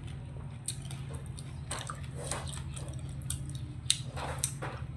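Close-up chewing of soft, cheesy rice and shrimp: wet mouth and lip smacks, a scattered click every second or so, over a steady low hum.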